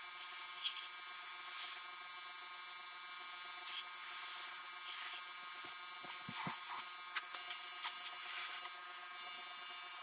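Steady high hiss with a few faint taps and clicks of handling.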